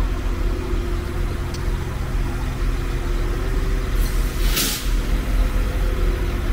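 Diesel train engine idling steadily, with a short hiss of air about four and a half seconds in.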